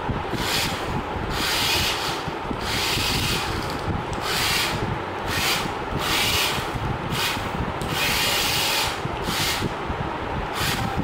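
Small electric gear motors of a hobby robot car whirring in about ten short, high-pitched bursts as it is driven in starts and stops, over a steady low rumble.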